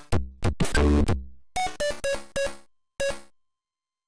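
Commodore 64 SID chip music from the demo's soundtrack, in a sparse break: a drum hit and a string of short staccato synth notes, each dying away quickly. It drops to silence for the last half second or so.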